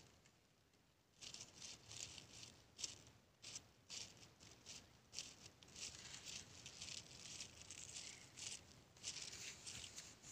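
Faint, irregular rustling and crackling that starts about a second in, after a moment of silence.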